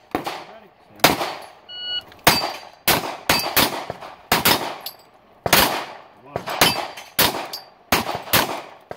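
Glock pistol fired in a rapid string at steel plate targets, about fifteen shots a half second to a second apart, each echoing briefly. Several shots are followed by a short metallic ring of a struck plate.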